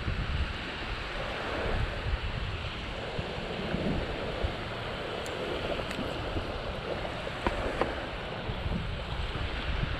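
Small waves washing onto a sandy beach, with wind buffeting the microphone. A few light clicks come in the second half.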